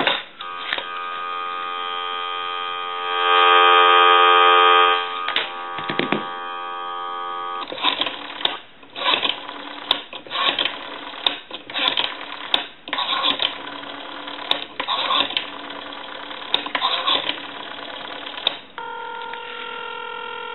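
Sound from the amplified handset of a Western Electric 500 telephone on a live line: a steady dial tone, then a recorded time-and-temperature voice announcement heard through the earpiece, then a steady tone near the end.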